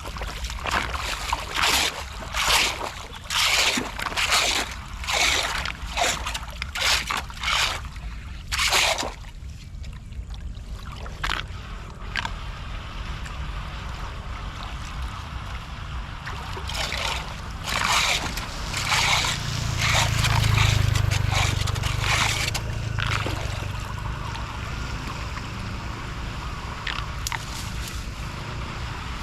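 Floodwater splashing and sloshing in quick repeated strokes, about one and a half a second, as debris is worked loose from a clogged street drain, with water running steadily between them. After a pause a second run of splashes follows, along with a brief low rumble.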